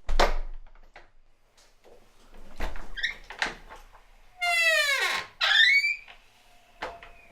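Squeaky wooden door creaking on its hinges as it is swung: several squeaks, the loudest a long one that slides down in pitch a little past the middle, followed by another. Low thuds come right at the start and again about two and a half seconds in.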